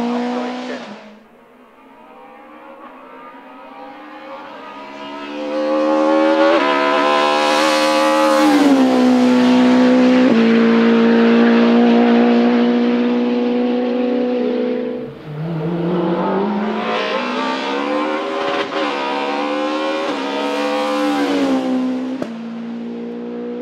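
BMW M3 E30 hillclimb race car engine at full throttle. The note climbs and drops sharply at each upshift. It comes up from faint to loud over the first several seconds and holds a high, steady note, breaks off briefly about two-thirds through, then rises again through more gear changes.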